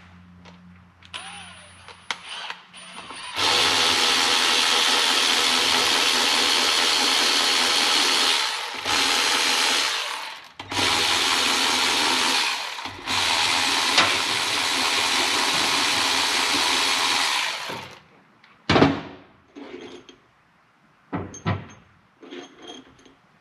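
A power tool runs in four long bursts, backing out cylinder head bolts on a Can-Am Maverick 1000 V-twin engine. It is followed by a sharp knock and a few light metal clinks as the parts are handled.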